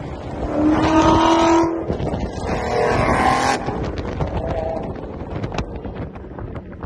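Cars driving in a convoy, heard from inside a moving car: steady engine and road rumble with wind noise. Two held, steady notes stand out over the traffic noise, one from about half a second to two seconds in and a shorter one around three seconds.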